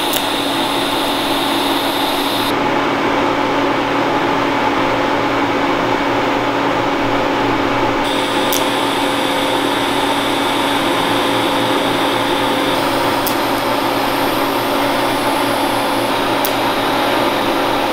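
TIG welding arc running steadily as a bracket plate is welded onto a go-kart swing-arm tube: a constant buzzing hiss with a faint hum, and a few faint ticks in the second half.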